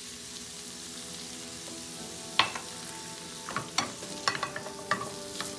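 Green beans sizzling quietly in a frying pan, with a wooden spatula knocking and scraping against the pan in irregular clicks from about two and a half seconds in as the beans are stirred.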